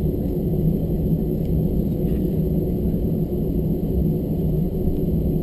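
Airbus A321 cabin noise while taxiing: the CFM56 turbofan engines at idle as a steady low drone with a steady hum, heard from inside the cabin.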